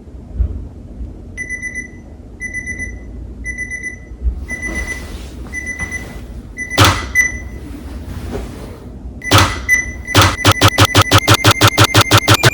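An electronic alarm beeping, first about once a second, then switching near the end to a fast run of beeps that steps up in pitch. Rustling and two loud thumps come in between the beeps.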